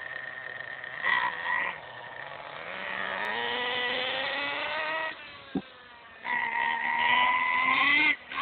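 HPI Bullet 3.0 nitro monster truck's .18-size two-stroke glow engine revving as the truck accelerates: two short blips about a second in, then a long climb in pitch that drops off, and a second climb that cuts off sharply near the end.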